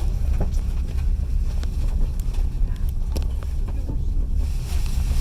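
Passenger train carriage running along the track: a steady low rumble of the wheels on the rails, broken by scattered sharp clicks and knocks.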